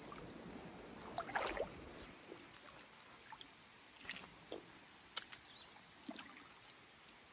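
Faint small-creek water sounds: low hiss with a few short splashy, gurgling noises and light clicks. The loudest cluster comes about a second in.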